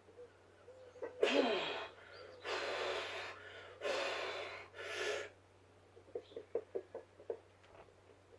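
A person breathing hard in four heavy gasps, as after strenuous exertion, followed by a few soft short clicks.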